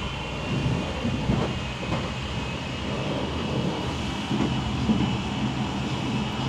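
A moving vehicle's steady running rumble, with a few faint steady high tones over it.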